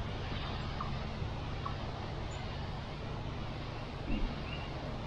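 Hand pump sprayer spraying concrete sealer through its brass wand: a steady hiss, with a low hum underneath.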